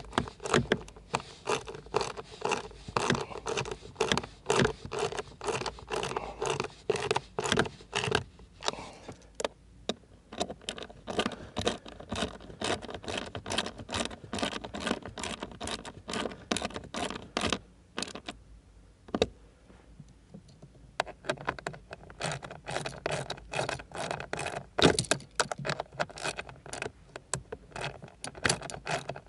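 Ratcheting screwdriver driving in the mounting screws of a new HVAC blower motor: rapid runs of clicks, about four a second, stopping for a few seconds about two-thirds of the way through and then starting again.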